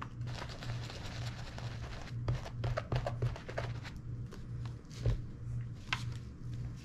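Dauber brush scrubbing saddle-soap lather into a leather boot toe to lift a stain: irregular short scratchy strokes and light handling clicks, over a steady low hum.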